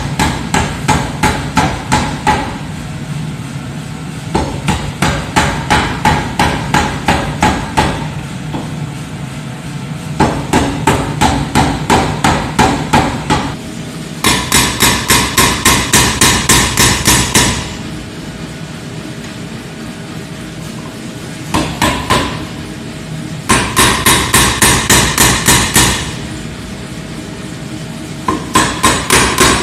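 Power hammer forging hot steel in runs of rapid, evenly spaced blows, about four a second, each run lasting a few seconds. A steady hum carries on between the runs.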